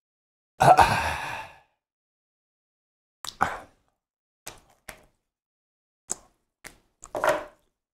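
A man's heavy, breathy exhale about half a second in, blowing out against the chili burn, followed by a few faint clicks and taps of a chocolate piece being handled on a paper towel, and another short breath near the end.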